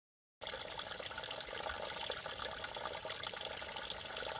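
Water from a small spring trickling and dripping down a rock face into a shallow pool, a steady splashing trickle that starts about half a second in after a short silence.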